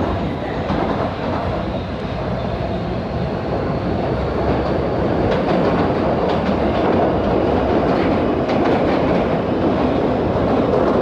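Interior of a PATH PA-5 subway car running through a tunnel: a steady, loud rumble of wheels on rail, with short clicks from the wheels over the track that grow more frequent from about halfway.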